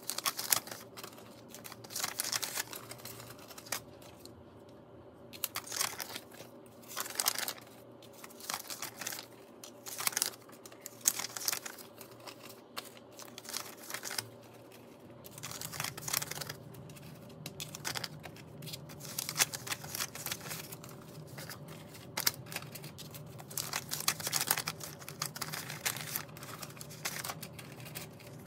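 Paper banknotes being unfolded and handled, crinkling and rustling in irregular bursts.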